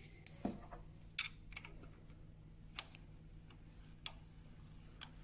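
Light, sharp metallic clicks and taps of a combination spanner on the nut of a steel screw as it is turned and wound down into a wooden block, about half a dozen scattered irregularly, the loudest about a second in.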